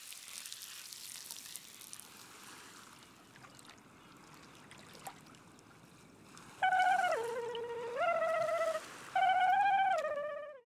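Faint trickling, splashing water, then, about six and a half seconds in, a short tune of held, slightly wavering notes that step down and back up over about four seconds.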